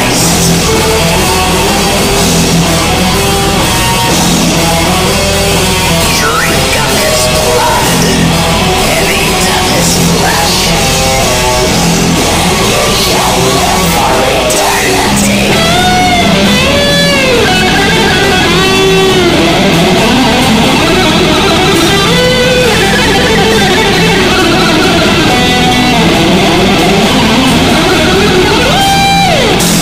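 Heavy metal band playing: distorted electric guitars over drums and bass. From about halfway in, a guitar line bends notes up and down.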